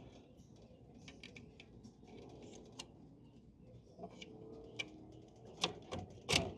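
Scattered light clicks and taps from handling wire pigeon cages and their plastic latches, with two sharper knocks near the end. Faint pigeon cooing sits underneath.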